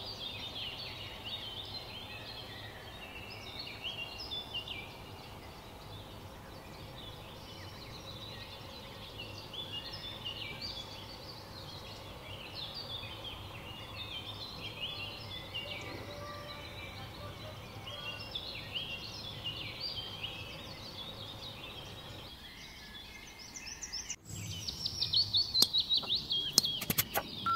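Many small birds chirping and twittering in a continuous background birdsong track, with short overlapping calls. About three-quarters of the way through the birdsong breaks off, and a different run of sharp clicks and chirps follows.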